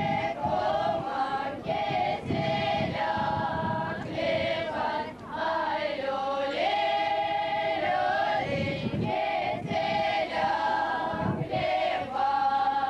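Women's choir singing a folk song, with long held notes.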